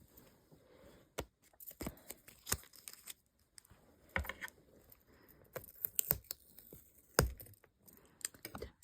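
Close-miked sticker handling: irregular small clicks and taps mixed with short crinkling, peeling scrapes. The loudest is a sharp tap about seven seconds in.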